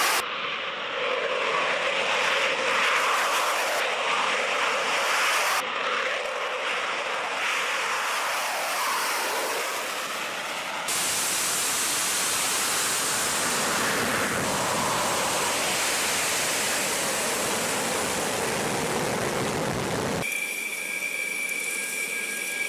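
Military fighter jet engines roaring on takeoff, a loud steady rushing roar, in several shots joined by abrupt cuts. The last couple of seconds are quieter, with a steady high whine.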